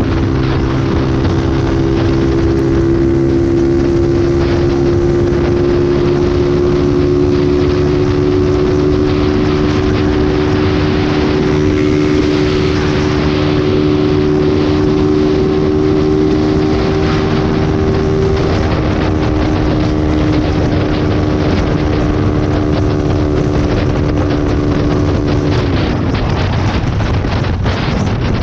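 Vehicle engine held at high revs at highway speed, under heavy wind rush on the microphone. The engine note creeps slowly higher, then drops sharply near the end as the revs fall.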